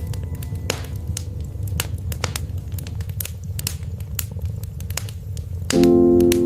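Burning wood fire crackling, with many sharp clicks and a few louder pops over a steady low rumble. Near the end a sustained keyboard chord comes in and becomes the loudest sound.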